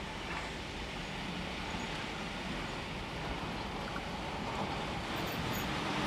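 Rhaetian Railway Ge 6/6 I 'Crocodile' electric locomotive and its coaches approaching on the narrow-gauge track, a steady running noise of wheels and running gear that grows slowly louder towards the end.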